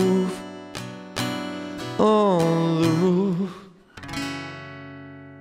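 A song ending on acoustic guitar: a few strummed chords under a held, wavering wordless vocal note. A final chord comes in at about four seconds and rings out, fading away.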